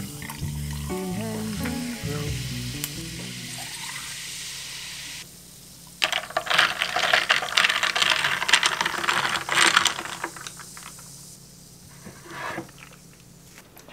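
Carbonated drink fizzing over ice in glass mugs: a dense crackling hiss that starts suddenly about six seconds in, stays loud for about four seconds, then dies down. Background music with a melody plays in the first few seconds.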